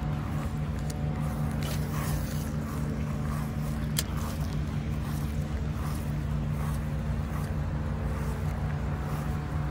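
A steady low mechanical hum, like a running motor, with a single sharp click about four seconds in.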